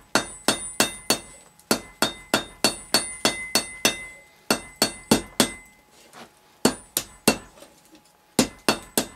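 Hand hammer striking red-hot iron stock on an anvil, forging a door hinge: quick blows about four a second in runs of several strikes with short pauses between, the anvil ringing faintly under each blow.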